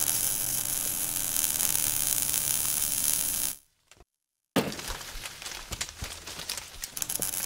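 Sound effects of an animated logo intro: a dense crackling hiss for about three and a half seconds, a brief gap, then a sudden hit followed by crackling with scattered sharp clicks.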